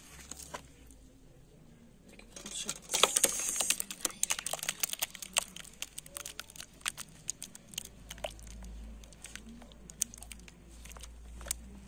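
Thick, sticky dried-fig jam being poured and scraped out of a pot into a wide aluminium tray. After a quiet start, a dense run of wet crackling and plopping sets in about two and a half seconds in, then thins to scattered sticky clicks and plops.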